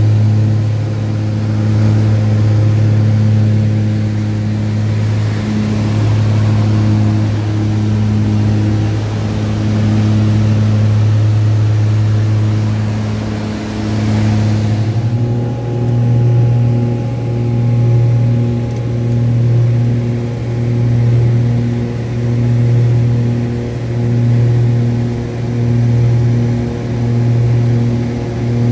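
Cabin drone of a twin-engine propeller plane in flight: a loud, steady low hum. About halfway through, the pitch steps slightly higher and a slow pulsing of roughly one beat a second sets in, the throb of the two propellers turning at slightly different speeds.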